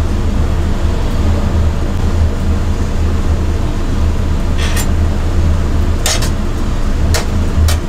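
Vertical kebab rotisserie grill running with a steady low mechanical hum, with four short sharp crackles in the second half.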